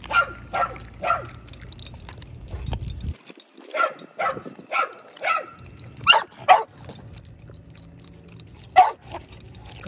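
A dog barking: about ten short barks in groups of two to four, with pauses between the groups.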